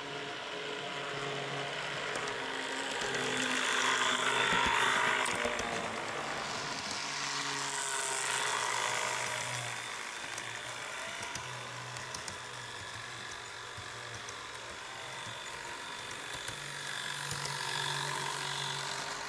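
Model Sprinter railcar running on the track: its small electric motor whirring with wheels rattling over the rails, swelling louder as it passes close, about four seconds in, again near eight seconds and near the end. The motor is noisy while it is still being run in; the owner thinks about half of the batch came with noisy motors.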